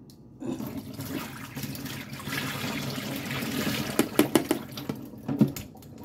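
Water pouring and splashing through a metal mesh strainer into a kitchen sink as cantaloupe seeds are rinsed, with a few sharp knocks about four seconds in and again near the end.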